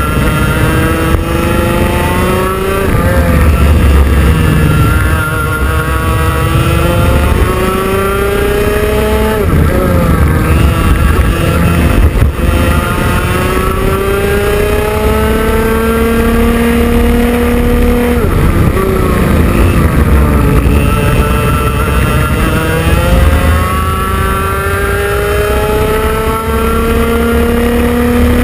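IAME X30 Junior 125cc two-stroke kart engine running hard. Its pitch climbs steadily through each straight and drops sharply each time the throttle is lifted for a corner, several times over.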